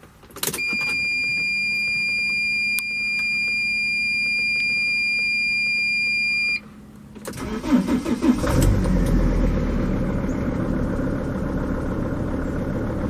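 Mercedes Sprinter 2.7 L five-cylinder diesel: with the ignition on, a steady electronic warning tone sounds from the dash for about six seconds, then the engine cranks, catches about a second later and settles into a steady idle. The van has four faulty glow plugs and a faulty glow plug controller, the cause of its hard cold starts.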